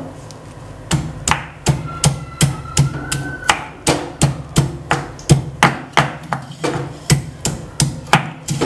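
Ginger being pounded with a pestle in a stone mortar: a steady run of thuds, about three a second, starting about a second in.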